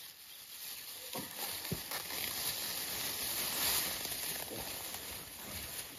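Black plastic bag rustling and crinkling as a deer quarter is packed into it, with a couple of dull knocks about a second in.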